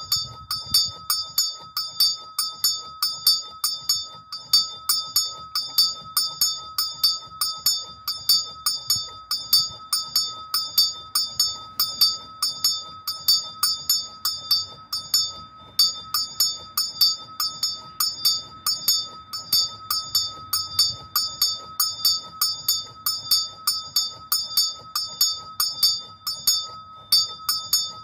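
Small swinging bell rung by a rope pull, its clapper striking steadily about two to three times a second, each stroke a bright, high ring that does not die away between strokes.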